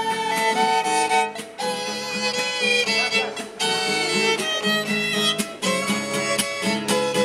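Violin playing the melody in held notes over acoustic guitar strumming chords, an instrumental passage with no singing.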